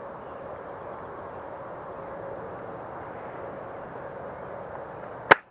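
Steady outdoor noise in woodland, then near the end a single sharp, loud snap, typical of a UTG tri-shot spring airsoft shotgun being fired, after which the sound cuts off suddenly.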